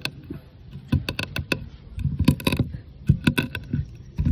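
Quick irregular runs of light, sharp taps and clicks, several a second.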